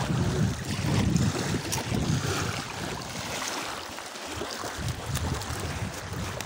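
Wind buffeting the microphone in gusts, with small waves lapping on a pebble shore; the wind lulls briefly about halfway through.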